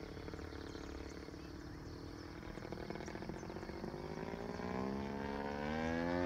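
Radio-controlled aerobatic model airplane's engine and propeller droning, the pitch rising and the sound growing louder over the second half.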